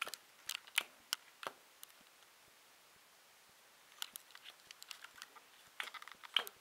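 Playing cards being dealt and laid down on a table, heard as short sharp clicks: a run in the first second and a half, then a quiet gap, then more from about four seconds in.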